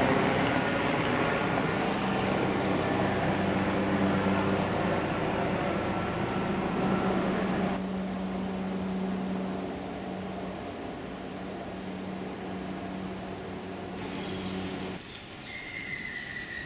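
A steady mechanical hum like an engine running, under a rushing noise that eases about halfway through. The hum stops near the end, where short bird chirps and a whistle come in.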